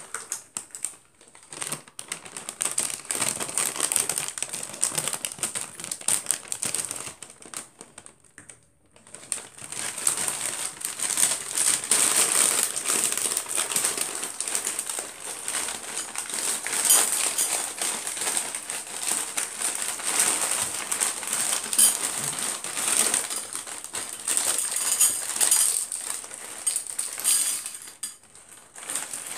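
Plastic inner bag of a cereal box being handled and pulled open: a long run of crinkling and rustling, with a short pause about nine seconds in.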